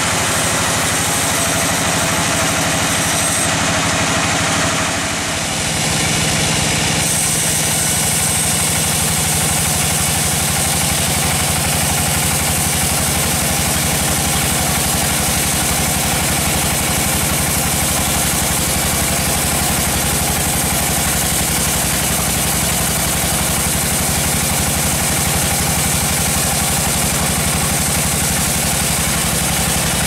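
Large log band saw running steadily as its vertical blade rips a teak log lengthwise into a slab: a dense, continuous machine hum with saw hiss, dipping briefly about five seconds in.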